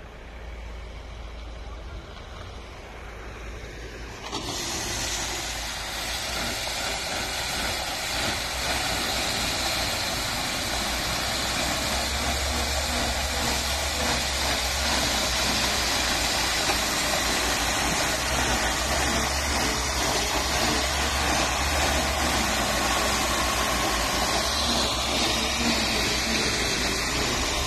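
Forward moving aggregate spreader machinery running with a low engine hum. About four seconds in, a steady rushing noise starts abruptly and grows slightly louder, then holds.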